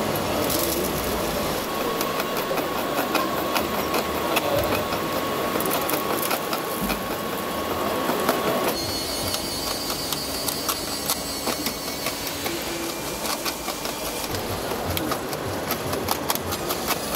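Small electric drive motor and gearbox of a radio-controlled Mercedes-Benz Actros tipper truck whining as it drives, with light clicking. The whine holds a steady pitch, then changes character about halfway through.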